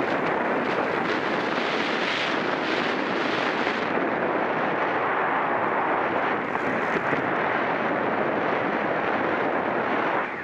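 Steady rush of wind over the microphone of a rider's camera at racing speed on a bicycle.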